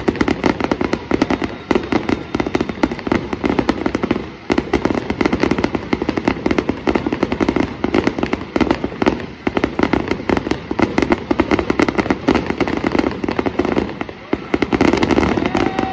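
Fireworks display: a loud, dense barrage of crackling and popping bursts that goes on almost without a break. It eases briefly about four seconds in and again near fourteen seconds.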